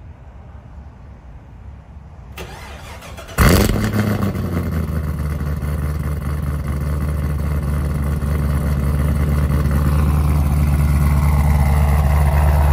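Supercharged 6.2-litre V8 of a Hennessey Exorcist Camaro ZL1 heard at the exhaust tips, starting with a sudden loud flare about three and a half seconds in, then settling into a steady, deep idle.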